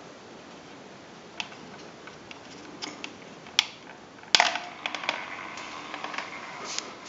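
Motorized plastic rotary display turntable: a few light clicks as a hand works at its base, a sharp click about four seconds in, then the motor turning the stand with a faint steady tone and irregular clicking and crackling from its plastic gearwheel.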